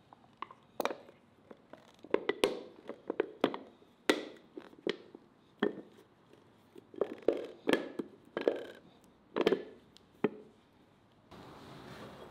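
White sauce squeezed from two plastic squeeze bottles into a clay bowl, coming out in a series of short spurts, about a dozen, that stop shortly before the end.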